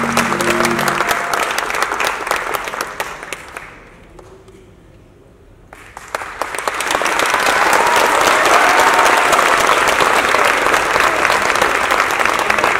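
Audience applauding a dance performance as the last note of the music dies away. The clapping fades to a lull about four seconds in, then swells again with cheering voices as the dancers take their bow and run off.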